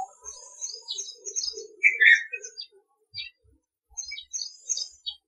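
Small birds chirping and twittering, many short overlapping calls with brief gaps; the loudest burst of calls comes about two seconds in.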